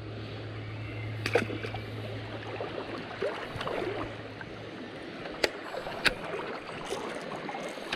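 River water moving and sloshing around an angler wading in a shallow stream, with a few sharp clicks scattered through it.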